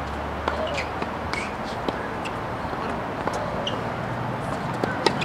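Tennis court ambience: scattered sharp pops of tennis balls being struck and bouncing at irregular intervals, with faint distant voices.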